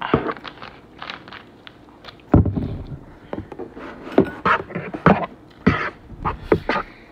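Close-miked eating and drinking sounds: a sip from a plastic Coca-Cola bottle, a heavy thump a little over two seconds in, then a quick run of chewing, lip smacks and hand-and-fork noises on the plate.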